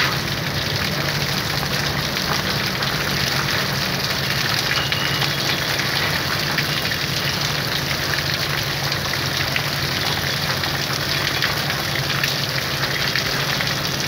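Water jet from a thin pressure hose spraying onto the dusty condenser coil of a split air conditioner's outdoor unit, a steady hiss and spatter, over the steady hum of a motor.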